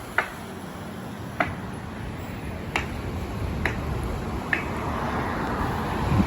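Five sharp clicks, about a second apart, over a steady background hiss that swells slightly near the end.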